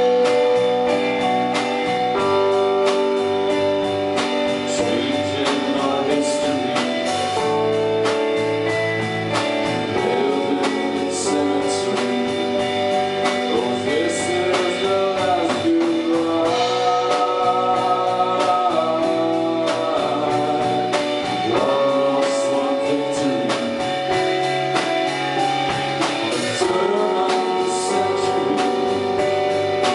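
Live rock band playing a calm song: electric guitar, bass and drums, with long held notes that shift every few seconds and some singing.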